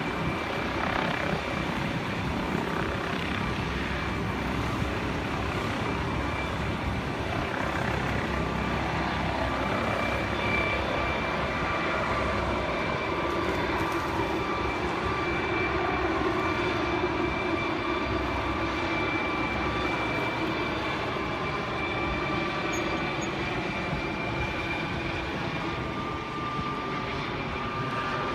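Helicopter running steadily, a constant engine noise with a high whine held throughout.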